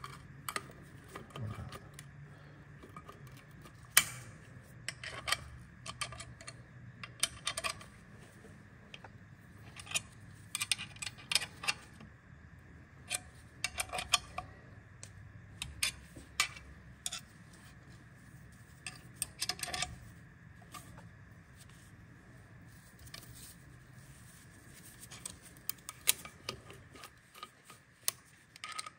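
Irregular metallic clicks and clinks of locking pliers and hand tools working a seized, heated stud loose, over a low steady hum that stops near the end.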